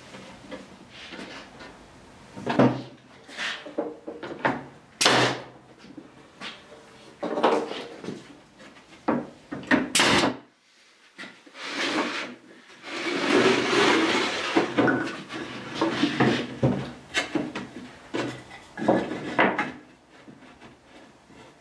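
Painted wooden boards being handled on an OSB sheet: a series of separate wooden knocks and clatters as pieces are picked up and set down, with sliding scrapes between them and a longer stretch of scraping about two-thirds of the way through.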